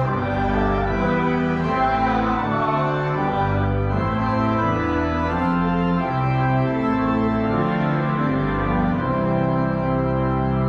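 Church organ playing a hymn in full, sustained chords that change step by step.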